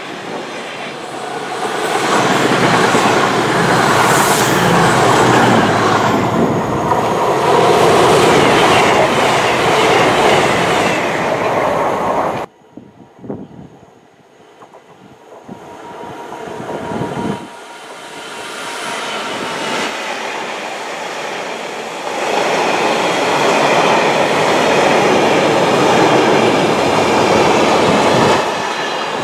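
Container freight wagons rolling past close by, their wheels clattering over the rail joints. This stops abruptly at a cut about twelve seconds in. Then a Class 66 diesel locomotive and its container train approach from quiet, the noise building in steps until the wagons are rumbling past loudly.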